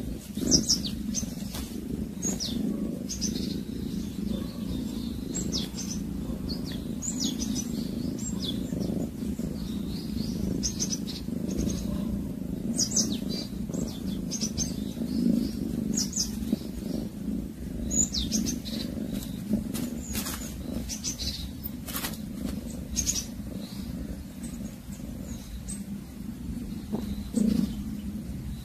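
Small birds chirping, short high calls scattered throughout, over a steady low rumble.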